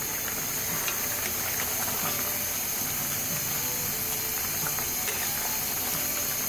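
Curry boiling in a pan on a gas stove: steady bubbling and crackling with a constant hiss.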